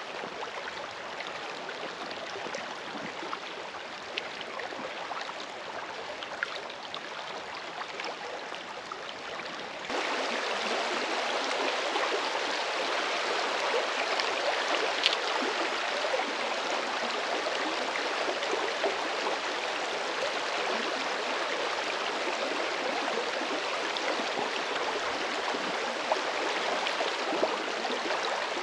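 River water running in a steady rush, with a few faint ticks and splashes; about ten seconds in it gets abruptly louder and stays so.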